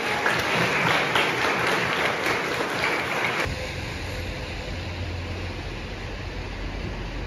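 Audience clapping in a hall, cut off suddenly about three and a half seconds in by a low, steady street rumble of traffic.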